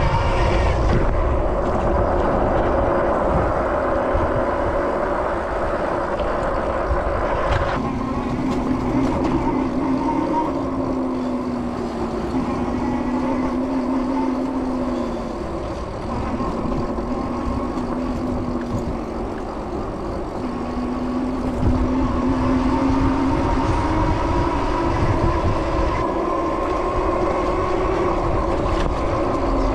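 City street traffic noise heard from a moving electric bike. From about eight seconds in, a steady hum joins it and dips briefly in pitch every few seconds.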